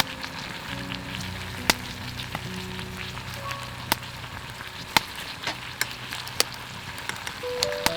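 Food sizzling in a pan over a wood fire, with a steady hiss and scattered sharp pops and crackles.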